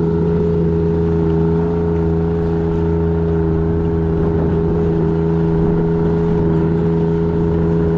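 A vehicle's engine running steadily at an even, unchanging pitch, as when driving along at a constant speed.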